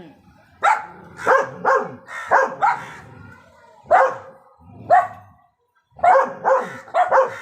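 German shepherd dogs barking repeatedly in quick runs of short barks, with a short pause about five and a half seconds in.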